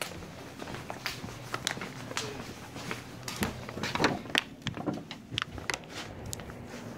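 Scattered knocks, clicks and rustles from a phone being handled and carried, over a faint steady low hum.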